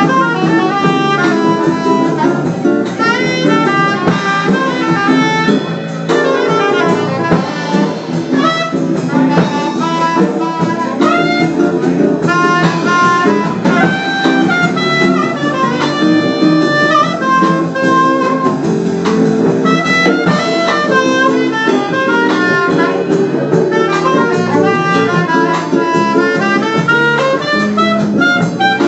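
Jazz instrumental with a saxophone carrying the melody over a steady accompaniment.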